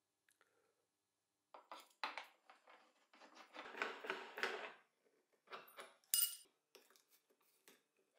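Quiet hand-handling sounds on a plywood grinding wheel: rubbing and rustling over the wheel and its sandpaper strip, broken by a few small ringing metal clinks from the hex key and bolt, the sharpest about six seconds in.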